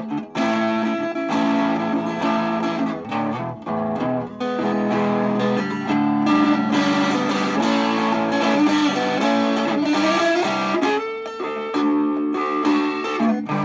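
Guitar music with held chords and single notes. About ten seconds in, one note slides upward.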